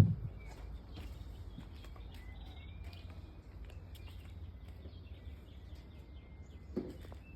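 Outdoor background: a steady low rumble with faint bird chirps running through it. A knock sounds right at the start and a softer one near the end.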